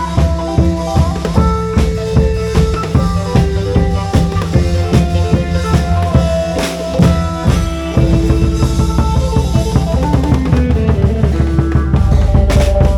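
Isan folk music from a klong yao long-drum troupe. Steady, rapid drum beats over a heavy bass, with a melodic line of held notes stepping up and down above them.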